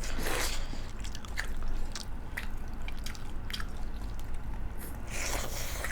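Close-up eating sounds: chewing and wet squishing of rice and curry, with scattered small clicks and two brief louder smacking bursts, one just after the start and one near the end.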